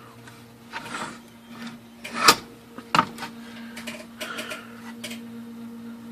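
Knocks and clatter from an IBM Selectric typewriter being handled to reach its underside, with the loudest knock about two seconds in, over a steady low hum.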